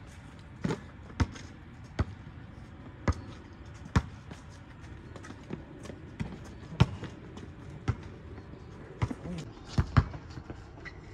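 Basketball bouncing on an outdoor asphalt court: a series of sharp, separate thuds at irregular gaps as the ball is dribbled and comes off rebounds, with the loudest near the middle and about ten seconds in.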